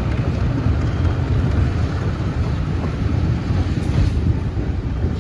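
Train running on the rails, a steady low rumble.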